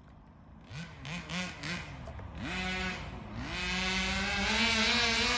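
HPI Baja 5B's small two-stroke gas engine revving in a few short blips, then holding a steady high rev that grows louder.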